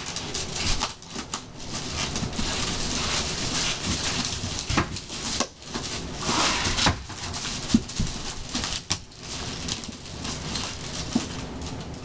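Wicker basket creaking and crackling under a person's weight as he climbs in and settles down inside it, with rustling and scattered knocks.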